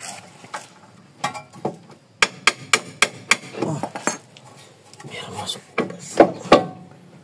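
Metal-on-metal tapping as the lower control arm with new bushings is knocked into place on the front suspension: five quick sharp taps about two seconds in, some clatter of parts, then three more taps near the end.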